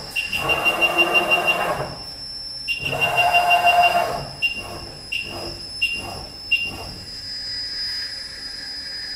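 A CNC knee mill's drives whine high in a series of starting and stopping moves: two longer runs, then four short ones about two-thirds of a second apart. After that a steadier, higher whine continues.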